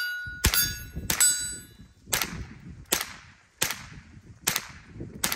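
Winchester Wildcat semi-automatic .22LR rifle firing unsuppressed CCI standard velocity rounds: seven sharp shots, a little under one a second. The first two are followed by the ringing of a struck steel target.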